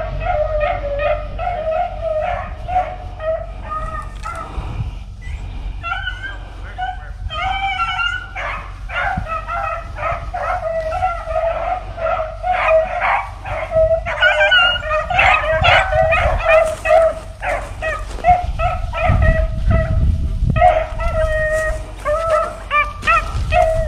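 A pack of beagles baying and bawling continuously, several voices overlapping, some long drawn-out howls and some short chop barks: the hounds running a cottontail rabbit's trail.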